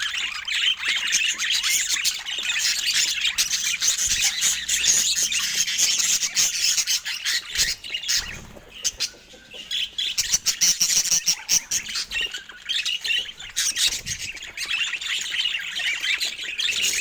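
Budgerigars chattering, with fast chirps and squawks packed close together and a brief lull about eight to ten seconds in.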